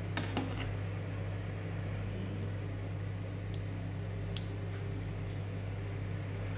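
A steady low hum runs through, with a few faint clicks of a metal skimmer handled over an aluminium frying pan, the first just after the start and others in the middle.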